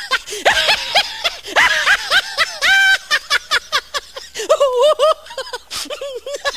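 High-pitched giggling laughter in quick, repeated bursts.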